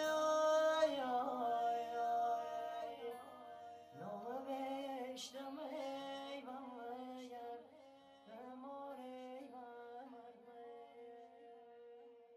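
A man singing a slow folk melody with long held, wavering notes and slides, accompanied by a plucked long-necked lute; it fades away near the end.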